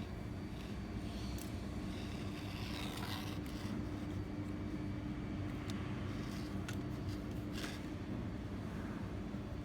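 Steady low rumble with a constant mechanical hum, and a few faint clicks scattered through it.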